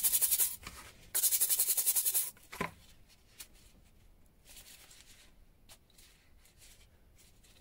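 Stiff nylon brush scrubbing a small rusty wrench in a bowl of rust-remover solution: two bursts of quick scratchy strokes, about a dozen a second, in the first two seconds or so. A light knock follows, then only faint handling.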